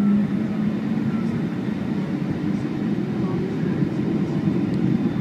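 Boeing 757 airliner on approach to land: a steady low rumble of engine and airflow noise, with a low hum that fades out about a second in.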